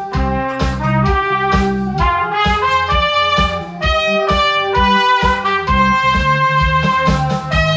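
Cornet playing a song melody, in held and moving notes, over a backing track with a bass line and a steady drum beat.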